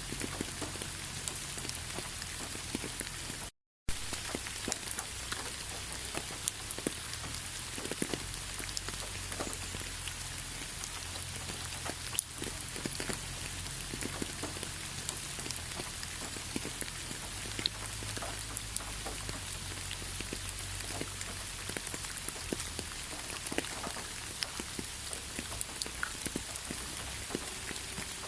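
Steady rain falling, with many individual drops tapping close by. The sound cuts out completely for a split second about three and a half seconds in.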